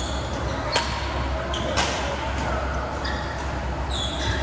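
Badminton rally: two sharp racket hits on the shuttlecock about a second apart. Several short, high squeaks from shoes on the court floor are heard over a steady low hum in the hall.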